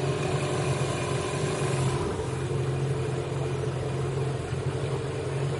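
Small Mercury outboard motor running steadily with the boat under way: a constant engine hum over an even rushing noise.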